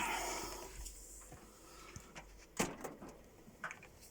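Handling noise from audio equipment and cables: a brief rustle at the start, then a sharp knock about two and a half seconds in and a few light ticks. A faint low mains hum runs underneath.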